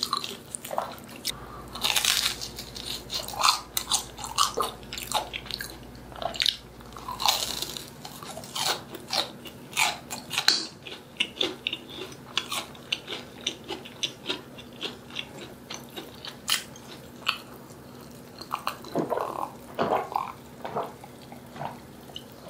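Close-miked biting and chewing of crispy fried food, with many sharp crunches of fried batter. The crunches come thickly in the first half, thin out, and bunch up again briefly later on.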